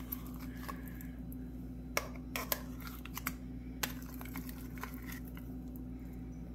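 A few soft, short clicks and taps of kitchen utensils and containers, over a steady low hum.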